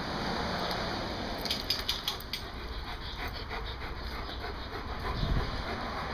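Dog panting steadily, with a quick run of sharp clicks about a second and a half in.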